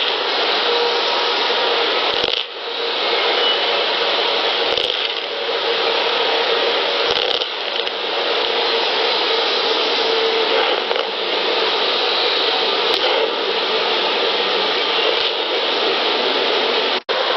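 Faint scratching and a few light clicks in the woods, heard through the loud hiss of a field recorder turned well up. The sound cuts out briefly near the end.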